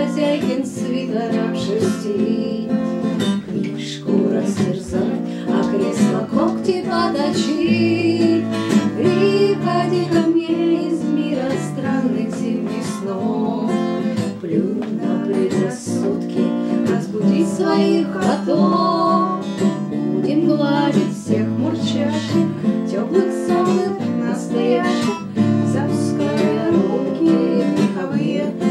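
Acoustic guitar strummed in a steady rhythm, with a woman's voice singing along.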